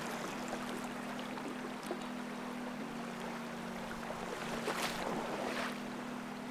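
Background music of sustained low notes that change every second or so, over a steady rush of flowing river water.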